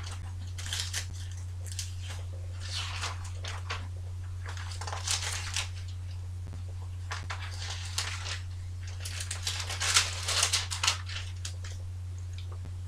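Thin Bible pages being leafed through, rustling in irregular flurries that are busiest near the end, over a steady low hum.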